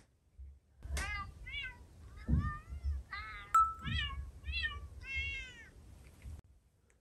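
About seven cat meows in a row, each a short pitched arching call, played from a smartphone's human-to-cat translator app. A sharp click falls in the middle of the run.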